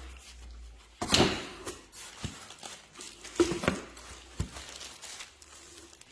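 Packaging crinkling and rustling as items are handled and unpacked, with a few sharp clicks and knocks.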